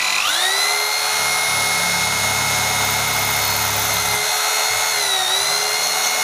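Rotary hammer drill with its hammer action switched off, boring a masonry bit into ceramic wall tile. The motor spins up at once to a steady high whine. A lower grinding of the bit cutting the tile runs from about one to four seconds in, and the pitch dips briefly under load near the end.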